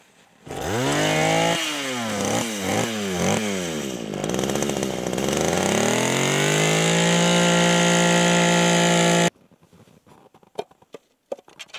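Handheld gas-powered ice auger with a small two-stroke engine starting up and revving up and down several times, then climbing to a steady high speed as it drills into the ice. It stops abruptly near the end.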